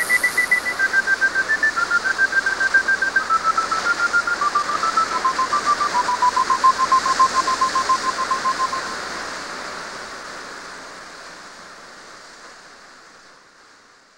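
Closing bars of an ambient instrumental track: a thin, pure-toned melody stepping down in pitch over a hissing wash with a rapid pulse. Near the end the melody stops and the wash fades out to silence over about five seconds.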